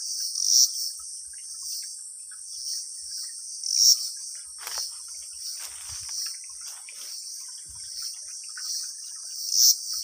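Steady, shrill insect chorus with a continuous high whine that swells and fades in pulses, loudest about four seconds in and again near the end. A faint rustle of handling comes midway.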